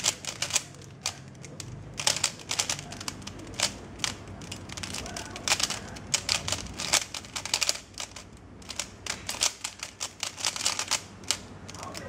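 Moyu Weilong 3x3 speedcube being turned at speed during a timed solve: rapid, irregular plastic clacking of the layers, in quick flurries broken by short pauses.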